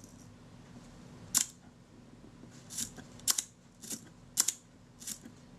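Kodak Retina IIa leaf shutter being cocked and fired at its slow speed settings: a series of about seven sharp clicks, some in close pairs. The speed fired near the end sounds too fast to the repairer, who takes it as a sign that the retard gear train has been disturbed.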